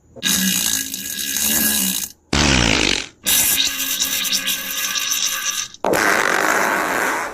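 Fart sound effect: four long, loud, noisy fart blasts with short breaks between them; the second, about two seconds in, is shorter and drops in pitch.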